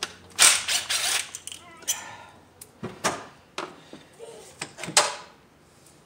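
3/8-drive ratchet with a long extension and 5/8 spark plug socket clicking in several short bursts while a spark plug is turned back into the cylinder head, the loudest burst in the first second.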